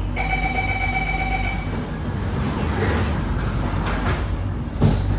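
Door-closing warning tone aboard an SMRT C151B train: a steady pitched tone for about a second and a half, then the carriage's hum and a sharp thud near the end as the doors shut.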